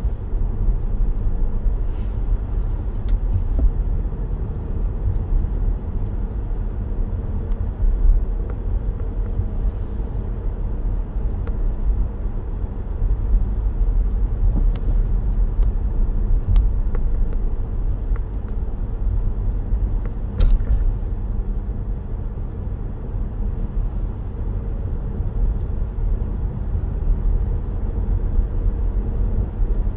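Car driving on a wet road, heard from inside the cabin: a steady low rumble of tyres and engine, with a few faint clicks scattered through it.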